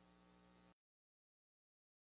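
Faint electrical mains hum in the recording, a steady buzz of many tones, cutting off abruptly less than a second in to dead digital silence: an audio dropout in the recording.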